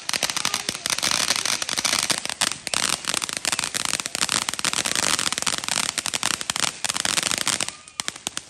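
Firecrackers going off in a dense, rapid crackle of many small bangs, thinning to scattered single pops near the end.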